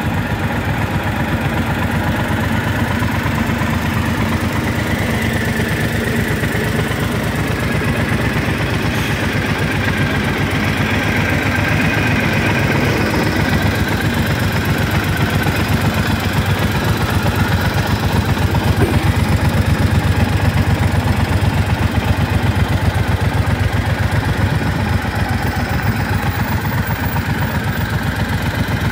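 Triumph Thunderbird LT's parallel-twin engine idling steadily, its exhaust pulsing evenly.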